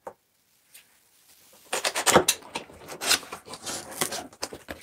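Cardboard box being opened by hand: a single click, a quiet second and a half, then a dense run of cardboard flaps rustling and scraping as they are pulled back.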